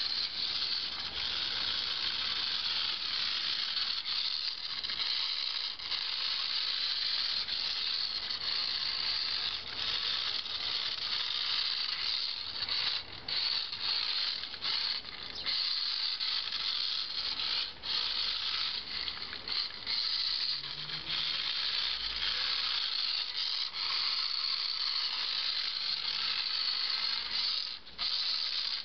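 Remote-controlled Ferrari F2005 model car's small electric motor and gears whirring at a high pitch as it drives and spins, broken by several brief drops.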